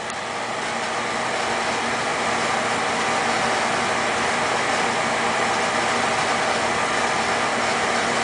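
Oil burner firing steadily: a constant rush of flame and blower fan with a faint hum under it. It builds slightly over the first couple of seconds, then holds with no pop. The burner is starved of fuel by tank sediment clogging its intake line, which makes it pop as it reignites between stable stretches like this one.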